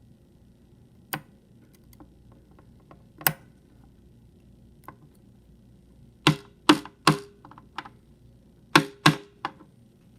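Sharp clicks and taps of small metal lock-cylinder parts being handled and set down on a hard surface, a couple of single ones at first, then a quick run of louder clicks in the second half, some with a brief metallic ring.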